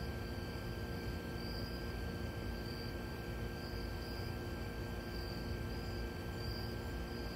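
Night insects chirping in a slow, even rhythm, about one high chirp a second, over a steady low hum and hiss.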